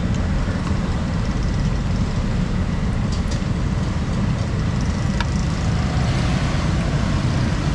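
Steady low rumble of outdoor street and traffic noise, with a couple of faint clinks of a steel ladle against a steel soup pot.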